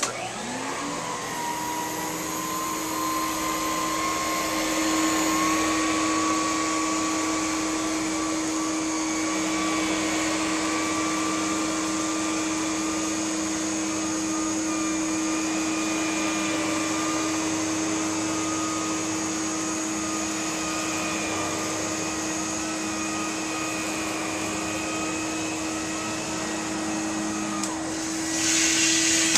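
Electrolux Epic 6500 canister vacuum cleaner switched on, its motor winding up to speed within about a second, then running steadily with a whine over rushing air. Near the end the air rush grows louder, and the motor is shut off at the very end.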